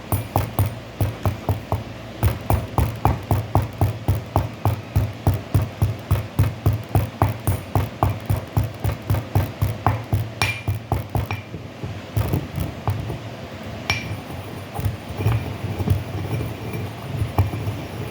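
Pestle knocking in a mortar, crushing tablets to powder for a puyer: fast, even strokes at about four a second that give way to slower, irregular knocks and clinks. Two short ringing pings come about ten and fourteen seconds in.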